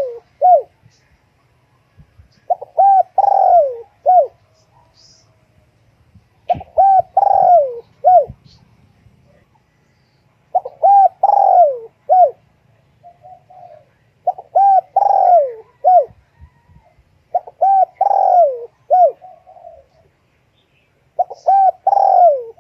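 Spotted dove cooing in repeated phrases, one about every three to four seconds. Each phrase is a few short rising-and-falling coos and one longer coo that falls in pitch.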